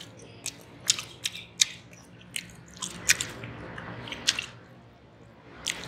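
A person chewing a mouthful of khichri with open-mouth smacking: an irregular string of sharp, wet clicks, about two a second, that stops shortly before the end.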